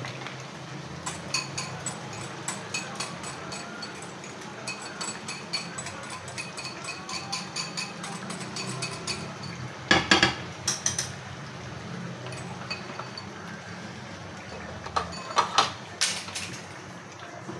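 Utensils clinking and scraping on metal as cream is scraped from a bowl into an aluminium karahi and stirred in with a wooden spoon: a run of light, irregular clinks for the first several seconds, then louder knocks about ten seconds in and again around fifteen to sixteen seconds.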